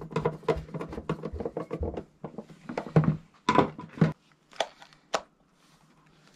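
Hand screwdriver driving a screw into the plastic lid of a bulkhead light fitting: a rapid run of small clicks and creaks for about two seconds. Then several sharp knocks and clicks as the fitting is handled.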